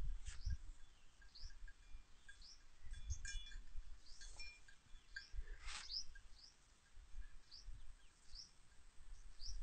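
A bird calling over and over, one short high chirp about every second, over an uneven low rumble.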